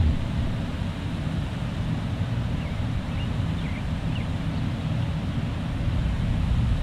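Wind rumbling steadily on the microphone, with a few faint short high chirps in the middle and near the end.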